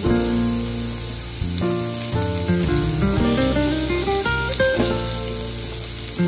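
Background music of plucked guitar notes, over the sizzle of beef frying on a tabletop grill plate.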